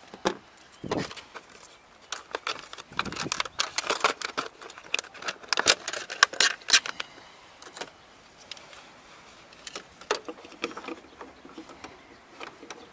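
Hard clear plastic clamshell packaging crackling and snapping as a handheld battery tester is taken out, followed by its cable leads and metal clamps clicking and rattling as they are handled. The noises come as irregular clicks, thickest in the middle, with a few more near the end.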